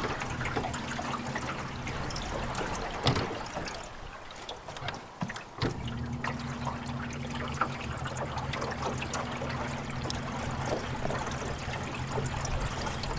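A johnboat's motor humming steadily as the boat moves along, with water trickling and lapping at the hull. The hum cuts out about three seconds in and comes back a few seconds later.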